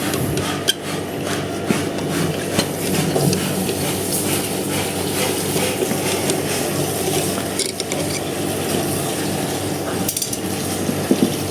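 Metal tool clicking and scraping continuously as a wrench works loose the stiff bolt that holds the stock horn on an electric scooter.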